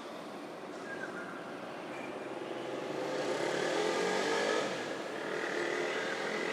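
A motor vehicle passing, its engine note swelling about three seconds in, easing, then rising again near the end over a haze of road noise.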